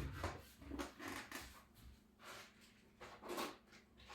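Faint, scattered knocks and clicks of tools and small lock parts being handled and set down on a hard work surface.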